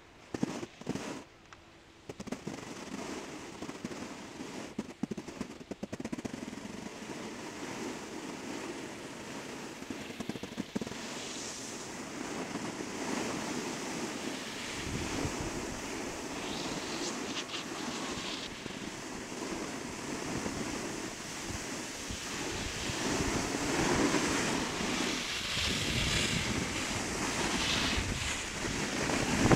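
Wind noise on a phone's microphone mixed with the hiss and scrape of sliding over packed snow, getting steadily louder toward the end. A few sharp knocks come in the first couple of seconds.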